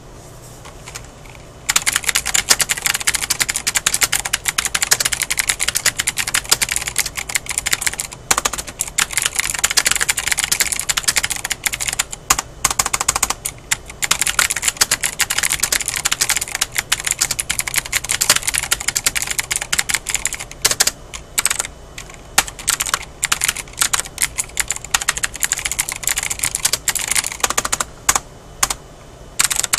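Fast, continuous typing on a mechanical keyboard with Cherry MX Blue clicky switches, each keystroke giving a sharp click; the typing starts a little under two seconds in and breaks off briefly a few times.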